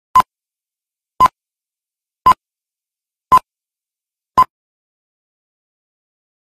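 Film-leader countdown beeps: five short, identical high beeps, one about every second, marking the numbers counting down.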